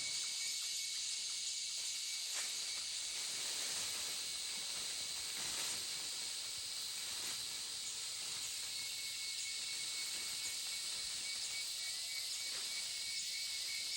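Rainforest insect chorus: a steady, high-pitched buzzing hiss of many insects, with a thin steady high note running through it.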